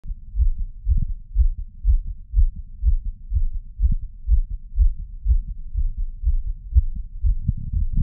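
Fast, pounding human heartbeat heard through a Stemoscope digital stethoscope: low thumps about two a second, matching a rate of around 120 beats per minute.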